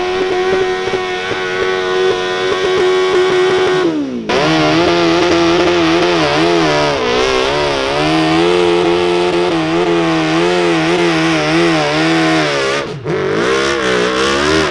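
Modified 1500cc garden-tractor engines at full throttle pulling a weight-transfer sled. The first holds a steady high-revving note. After a break at about four seconds, a second tractor's deeper engine labours under the load, its pitch wavering up and down.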